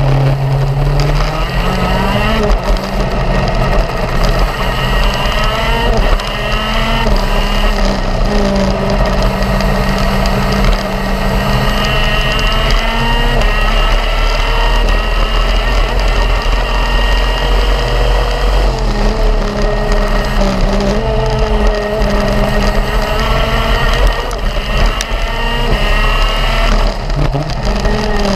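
Kart engine heard from on board at racing speed. Its pitch climbs as it revs out along the straights and drops sharply when the throttle is lifted for corners, about a fifth of the way in, again after about two-thirds, and near the end. Wind and track rumble run underneath.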